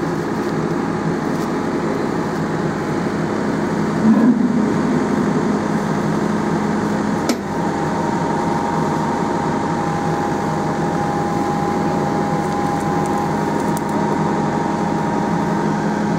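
Diesel engine of a JCB backhoe loader running steadily, a low hum with a higher steady whine joining about halfway through. A brief bump and a sharp knock stand out near the middle.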